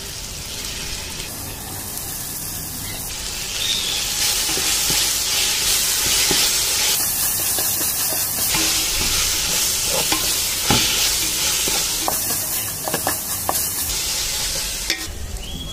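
Onion-tomato masala sizzling in a metal pot as fresh mint and coriander leaves are stirred in with a wooden spoon. The steady sizzle grows louder a few seconds in, with a few light clicks of the spoon against the pot.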